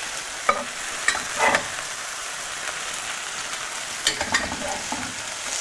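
Thin beef slices sizzling in oil in a hot frying pan, with a few clinks and scrapes of a metal turner against the pan as the slices are turned: a cluster about a second in and another about four seconds in.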